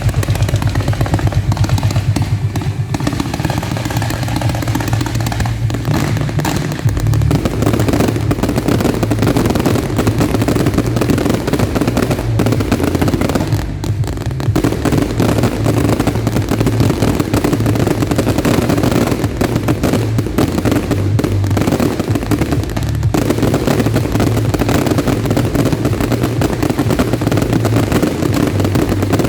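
Professional fireworks display going off in a dense, continuous barrage of rapid bangs and crackles, with heavy low booms.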